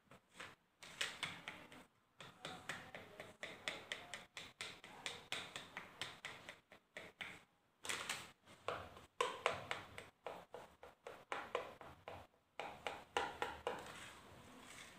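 A fork pricking quiche pastry pressed into small moulds: rapid, irregular taps, several a second, with a couple of short pauses. The dough is being docked so it won't puff up in the oven.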